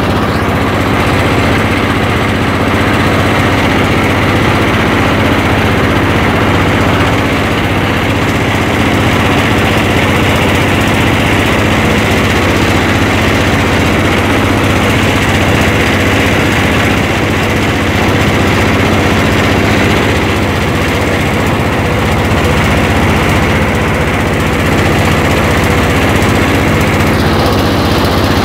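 Boat engine running steadily at constant speed, close by and loud, with a low, even drone.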